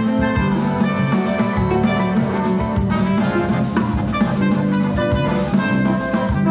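Instrumental choro arrangement played by a band, with plucked strings and drums keeping a steady beat.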